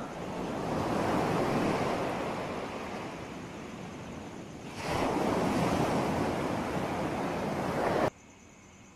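Ocean surf washing up on a beach: one wave swells and fades away, a second surges in about five seconds in, and the sound cuts off suddenly near the end.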